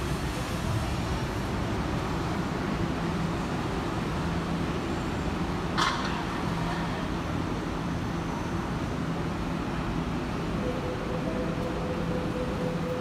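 Trensurb electric commuter train at the platform with a steady low hum. About six seconds in there is one short, sharp hiss as the doors open, and a faint steady tone comes in near the end.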